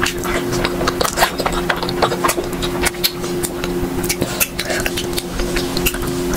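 Close-up eating sounds of someone eating syrup-soaked gulab jamun: many quick wet smacks, squishes and clicks of lips and chewing, and of the soft sweet being pulled apart by fingers. A steady low hum runs underneath.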